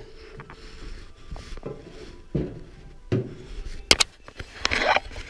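Clutch parts, a lightened flywheel and a clutch disc, being shifted and set down on top of a tool chest: a handful of short knocks and clunks spread through the few seconds, the sharpest one about four seconds in.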